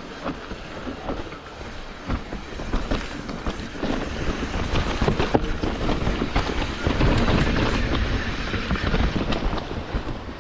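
Hardtail mountain bike riding a rough dirt trail: tyres rumbling over the ground, with chain and frame rattling in many sharp knocks. It gets louder about seven seconds in.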